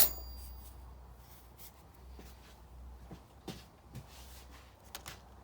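A sharp metallic clink, like a small steel part or tool set down on a hard bench, ringing briefly. It is followed by faint, scattered light ticks and rubbing as small metal parts are handled.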